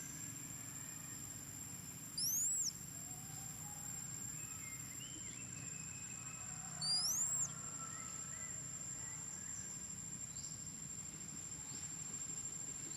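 Bird calling twice, each call a loud whistle that sweeps up in pitch and drops back, about four and a half seconds apart. A steady high-pitched whine and faint scattered chirps run underneath.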